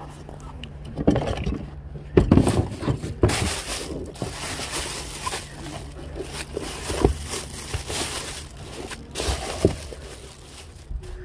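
Thin plastic bag rustling and crinkling as gloved hands dig through it and pull items out, with a few light knocks of the things inside, loudest from about two seconds in until near the end.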